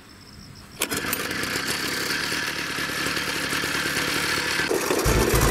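Kioritz AZ850 spider mower's small engine being pull-started: it fires and starts suddenly about a second in, then keeps running steadily. Background music with a beat comes in near the end.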